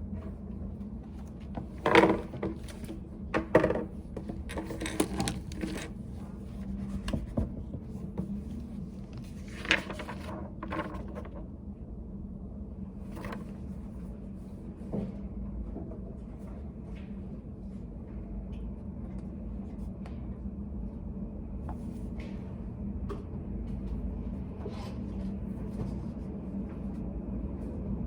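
Steady low hum of a study room with a run of knocks and short rustles in the first ten seconds or so, the loudest about two seconds in, followed by only scattered faint clicks.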